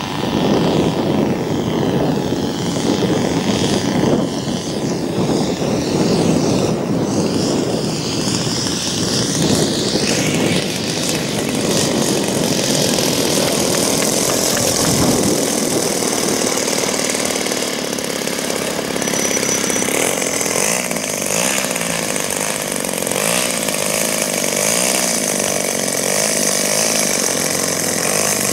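Radio-controlled model plane's 40cc DLE two-stroke gas engine. It is first heard in flight overhead, its pitch rising and falling as it passes. About halfway through it is on the ground, idling steadily as the plane taxis.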